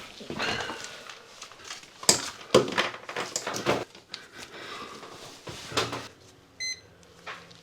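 Sharp knocks and clatter of tools and equipment being handled, then a single short electronic beep near the end.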